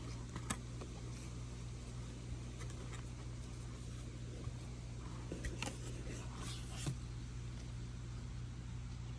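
Trading cards being handled and sorted: a few light clicks and paper rustles, clustered about five to seven seconds in, over a steady low hum.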